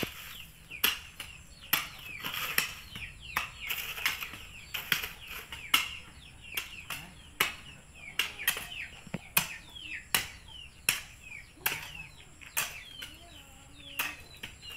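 Shovels and hoes biting and scraping into sand, gravel and soil by hand, sharp strikes about once a second at an uneven pace.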